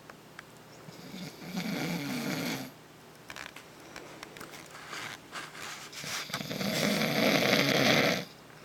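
A man snoring in his sleep: two long snores a few seconds apart, the second longer and louder.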